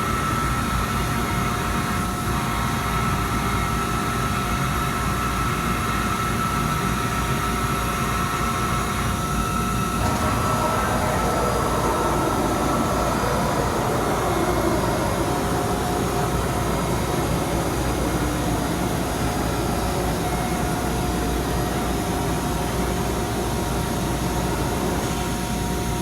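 Mazak Super Turbo X48 CO2 laser cutter running through its start-up, a steady machine hum with a high whine. About ten seconds in, a whine falls in pitch over a few seconds.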